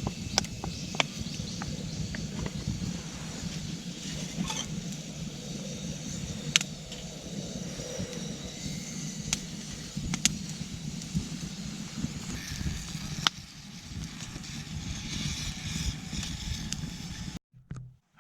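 Wood campfire crackling, with occasional sharp pops over a low steady rumble; it cuts off suddenly near the end.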